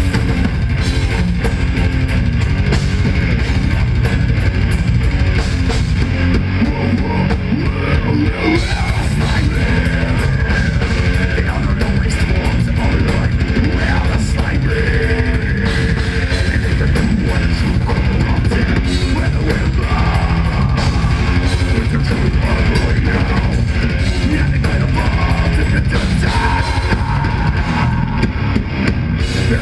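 Death metal band playing live at full volume: heavily distorted electric guitars and bass over a drum kit.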